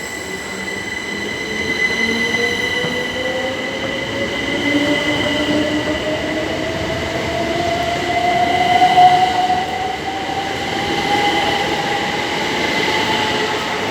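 Electric multiple-unit train pulling away, its traction motor whine climbing steadily in pitch as it gathers speed. A steady high-pitched squeal sits above it.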